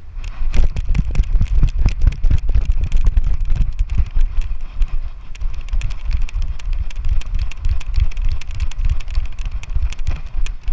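Loud rumbling and dense, irregular knocking from a GoPro action camera being jostled and buffeted.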